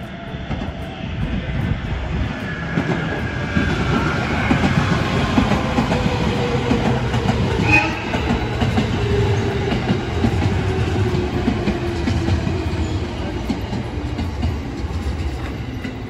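JR Kyushu electric train passing close by on the Kagoshima Main Line and running into the station: wheels rumbling and clacking over the rails, with a motor whine that falls slowly in pitch as it slows. It grows louder over the first few seconds.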